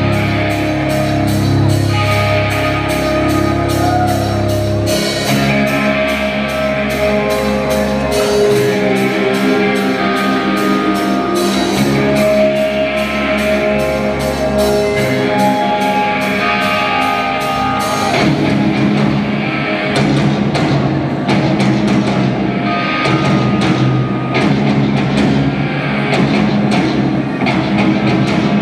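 Live rock band playing loud: distorted electric guitars carry a held melody line over drum kit and a fast, steady cymbal beat. About 18 seconds in, the cymbal beat drops away and the drums thin out while the guitars play on.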